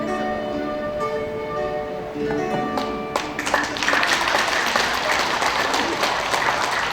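Soprano saxophone performance ending on long held notes, then an audience applauding from about three seconds in.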